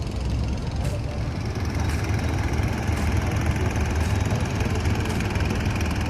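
City street traffic: vehicle engines running and idling in a steady low rumble.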